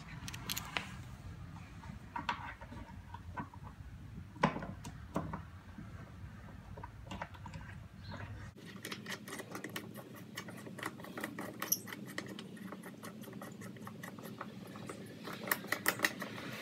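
Small clicks and taps of hands handling a black AN bulkhead fitting and its nut against a fuel tank as the fitting is set into the tank's port. Scattered taps give way to a quick run of small clicks, with a few louder clicks near the end.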